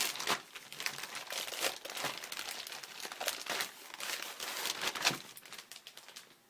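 Scrapbook kit packaging crinkling and rustling as it is unpacked by hand, in quick irregular crackles that ease off near the end.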